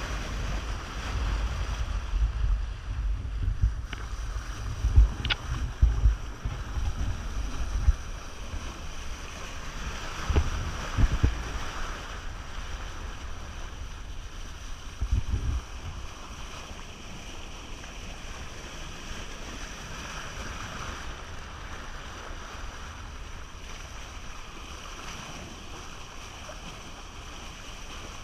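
Water rushing and splashing along the hull of a sailing yacht moving fast under sail, a steady hiss of spray and wake, with gusts of wind buffeting the microphone through the first half. A brief high squeak about five seconds in.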